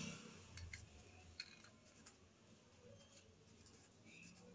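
Near silence, with a few faint small clicks in the first couple of seconds.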